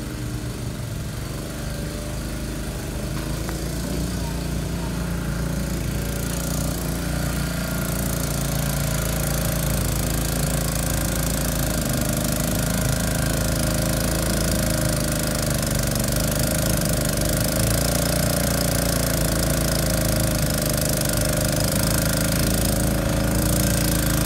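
Small gasoline engine of a wheeled post-hole digger running steadily under load as its auger bores into the ground, growing gradually louder.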